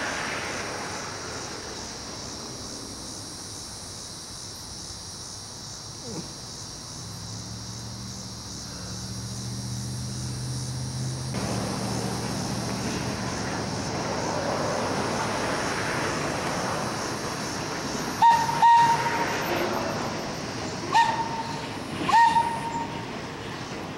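A train rumbling as it approaches, growing louder, then four short toots of the Thomas the Tank Engine locomotive's whistle in the last six seconds.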